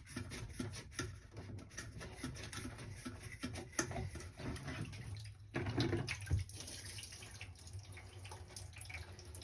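Water dripping and trickling from an opened Clack water-softener control valve, with small irregular clicks and scrapes of plastic parts as the piston is drawn out of the head.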